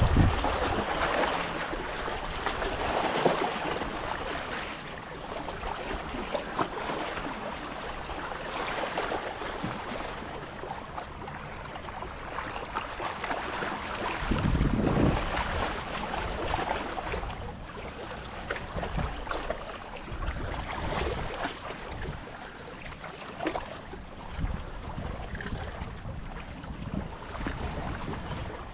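Small lake waves lapping and splashing against a rocky shoreline, with wind gusting on the microphone, strongest about halfway through.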